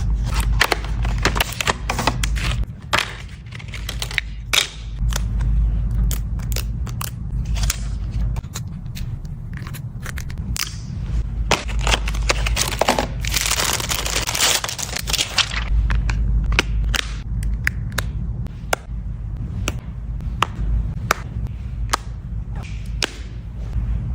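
A phone's retail box and packaging being handled and opened by hand: irregular clicks, crackling and scraping. About halfway through there are a few seconds of denser rustling, and a steady low rumble runs underneath.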